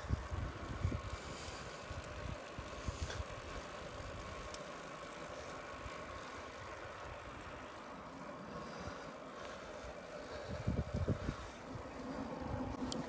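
Wind buffeting a handheld phone's microphone while riding a road bike, over a steady hiss of road noise. Low rumbling gusts come in the first second and again about eleven seconds in.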